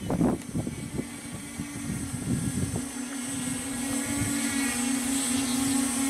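Alien X quadcopter's four brushless motors and propellers humming in a steady tone, growing slightly louder as it flies in low. Gusts of wind noise on the microphone during the first three seconds.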